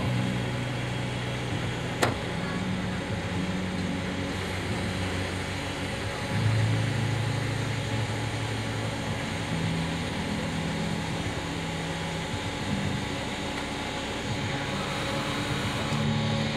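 Steady machine drone from the ground hydraulic test rig powering a MiG-21bis's hydraulics while its landing gear is cycled on jacks. The pitch steps up and down several times as the load changes, with a sharp click about two seconds in.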